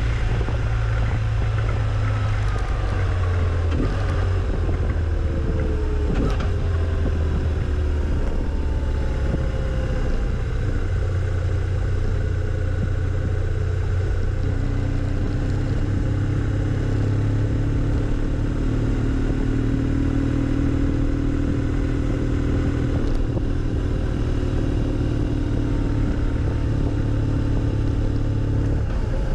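Engine of the moving vehicle running steadily at road speed, with wind and road noise. Its pitch falls over the first several seconds, then holds steady for the rest.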